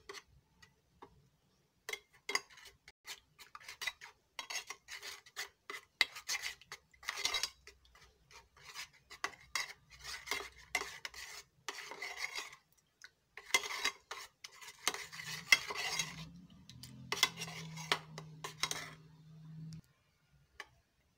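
Metal spoon stirring flour into milk in a metal saucepan, scraping and clinking against the pan in quick repeated strokes that stop shortly before the end.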